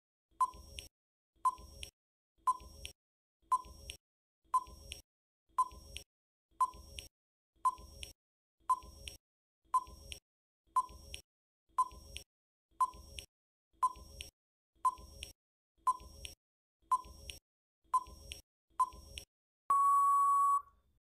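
Countdown timer sound effect: a short tick about once a second, then a single steady beep about a second long as the time runs out.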